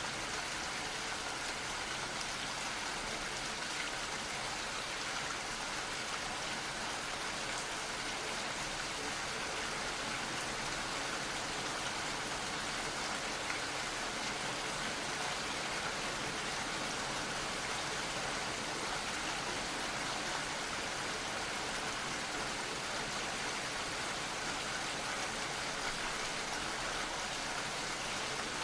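Steady, gentle rain falling, a continuous even patter of drops.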